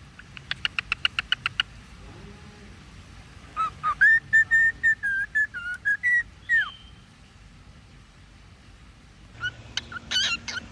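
Cockatiel whistling: a quick run of about ten sharp chirps, then a held whistled phrase of several notes lasting about three seconds, and a short burst of chirpy whistles near the end.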